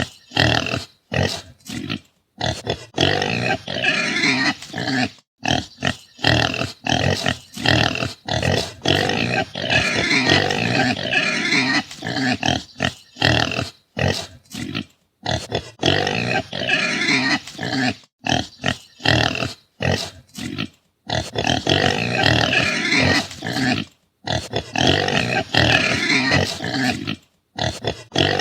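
Pigs calling loudly and almost without letup, the noise broken every second or two by brief gaps.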